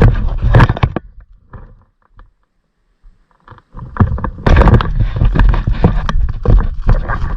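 Loud rustling and crackling with thumps and a low rumble, typical of the camera being handled and carried through dry woodland underbrush. It starts about four seconds in, after a couple of seconds of near silence.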